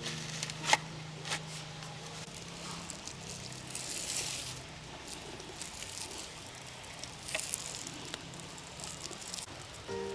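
A few sharp clicks, the loudest about a second in, with soft rustling and a brief hiss near the middle.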